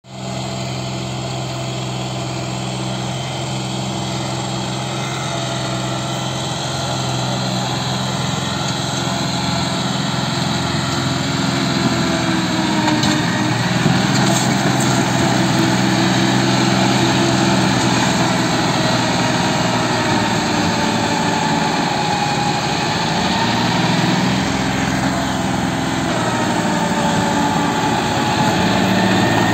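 John Deere 5050 tractor's three-cylinder diesel engine running under load as it hauls a trolley heaped with sugarcane, growing steadily louder as it draws nearer. From about halfway through, its pitch wavers up and down.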